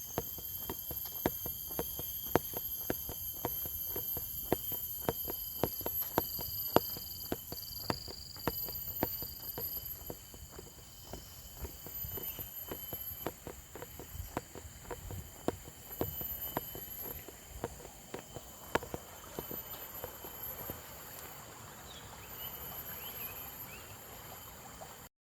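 Footsteps of a person walking at about two steps a second, over the steady high-pitched drone of forest insects at several pitches.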